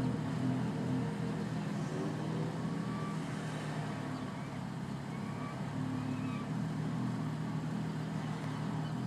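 Twin-turbocharged Lexus IS250's 2.5-litre V6 idling roughly, its note steady but uneven, with the upper part of the sound fading and returning partway through.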